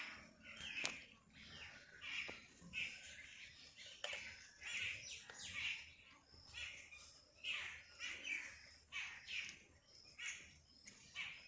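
Birds chirping, short repeated calls following one another every second or so.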